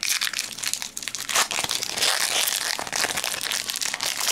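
Foil wrapper of a Pokémon trading card booster pack crinkling as it is torn open and handled by hand.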